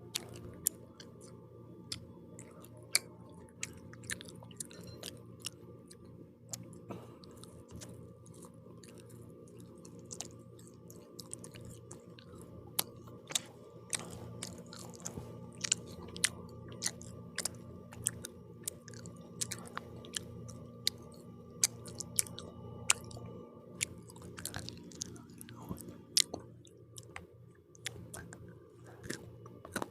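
Close-up mouth sounds of someone chewing pizza: irregular sharp crunches and clicks from the crust, over a steady low hum.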